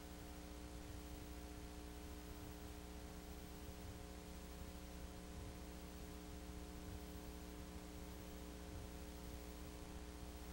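Steady electrical mains hum with a stack of overtones over a constant hiss, and nothing else: the noise floor of a soundless old film transfer.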